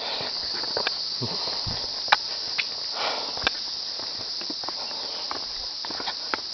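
Footsteps on a mountain forest path: uneven scuffs and light knocks, over a steady high insect drone.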